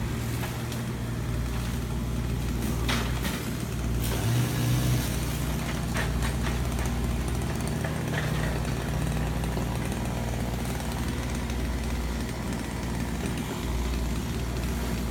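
A large engine running steadily with a low, even drone, joined by a few brief bursts of louder noise a few seconds in.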